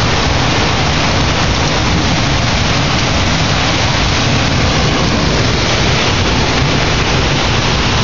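Heavy rain and strong thunderstorm wind, a loud steady rush with wind buffeting the microphone.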